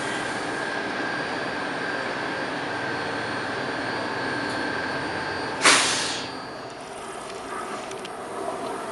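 A Washington Metro railcar standing at the platform, its onboard equipment running with a steady hum and a thin constant whine. About two-thirds of the way through comes a sudden loud burst of noise, after which the sound is quieter.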